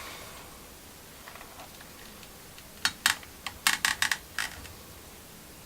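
Hot melt glue gun being worked: a quick run of about seven sharp, light clicks a little past the middle, with no lathe running.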